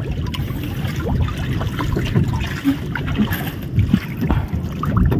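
Seawater splashing and lapping against the wooden hull of an outrigger boat as a swimmer holds onto it, with many small irregular splashes.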